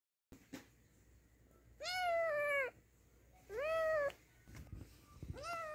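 Kitten meowing three times, each call a drawn-out cry that sags in pitch at the end, with the last one starting near the end. Faint bumps of handling come between the calls.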